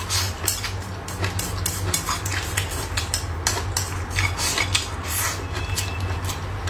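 Eating utensils clicking and scraping against bowls and plates during a meal, a run of short sharp clicks over a steady low hum.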